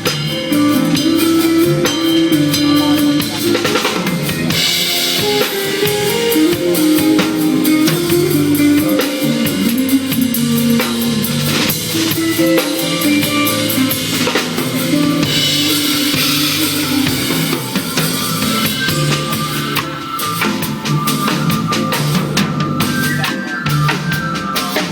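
Drum kit played along with a backing track that carries a melody and bass line: steady beats with cymbal washes, and a run of fast strokes near the end.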